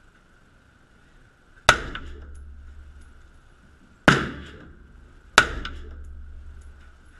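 Three unsuppressed shots from an AR-15 rifle with a .300 AAC Blackout upper, the second about two and a half seconds after the first and the third about a second and a half later. Each sharp crack rings on briefly in the echo of an indoor range.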